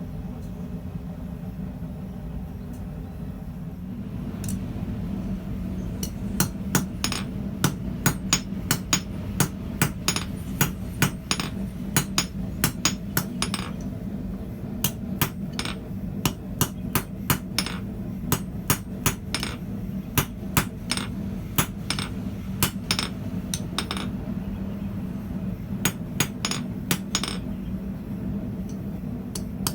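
Blacksmith's hand hammer striking steel on an anvil: a run of sharp, ringing blows about two a second, starting about six seconds in with a couple of short pauses. A steady low hum runs underneath.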